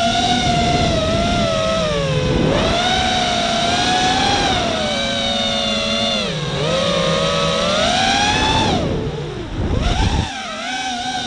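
Walkera F210 FPV quadcopter's brushless motors and propellers whining, heard from on board, the pitch rising and falling with the throttle. Near the end the whine drops away briefly, then comes a short, loud rushing noise before the motors pick up again.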